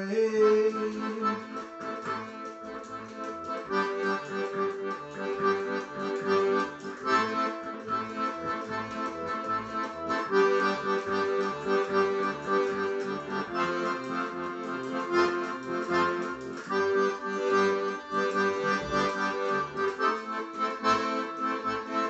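Piano accordion playing an instrumental passage of a pop song: held right-hand chords that change about every three seconds over a steady pulsing bass from the left-hand buttons.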